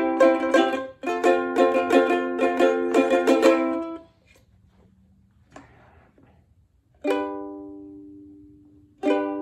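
Ukulele chord strummed quickly and repeatedly for about four seconds, then stopped; after a pause of about three seconds a single chord is strummed and left to ring and fade, and another is struck near the end.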